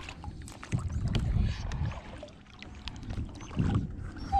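Water sloshing around a plastic sit-on-top kayak, with uneven low rumbles and small knocks against the hull. A short, high falling squeak comes at the very end.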